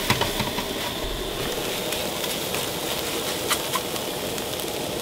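Scrambled eggs frying in a little oil in the pan of a Jetboil camp stove: a steady sizzling hiss with scattered small pops.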